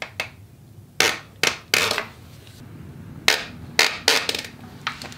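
A series of sharp, irregular metal knocks and clacks from a strap wrench being yanked against a stuck oil filter on a Honda CB500F engine.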